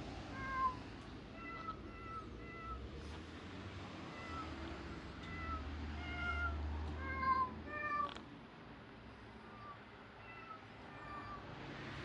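Cat-meow piano app on a phone playing a string of short meow notes at different pitches, about fifteen in all, each a brief steady-pitched mew.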